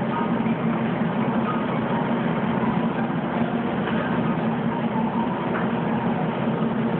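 Washing machines running with a steady low mechanical hum, with faint short high tones now and then.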